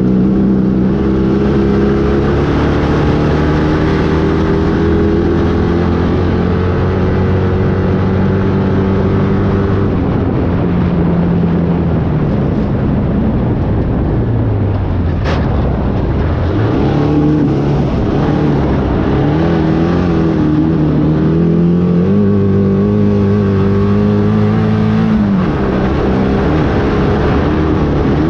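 A loud engine running at a steady pitch, then falling away about halfway through and climbing back up, wavering over the following seconds. A brief sharp click comes as the pitch bottoms out.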